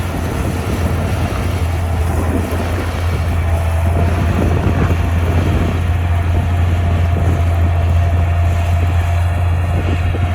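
Heavy diesel earthmoving machine running steadily with a deep, constant hum, a faint thin whine joining in about three and a half seconds in.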